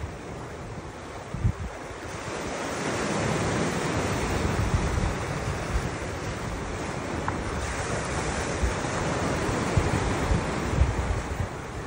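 Surf washing in a steady hiss that swells about two seconds in, with wind buffeting the microphone in low thumps.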